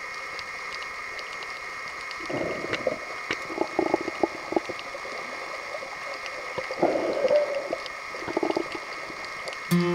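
Underwater sound from a submerged camera: a steady hiss with a faint hum, broken by four short bursts of bubbling. Music comes in at the very end.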